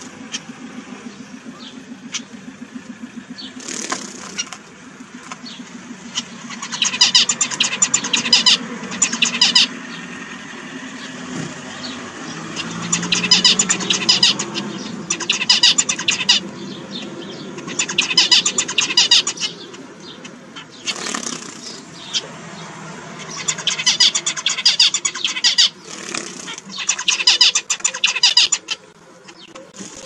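Zebra finches calling: about six bursts of fast, dense high chatter, each lasting a second or two, with quieter gaps between.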